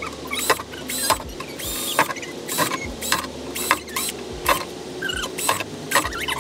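A cordless drill boring holes through a plastic planter box, run in short bursts about every half second to second, with short high squeaks between the bursts.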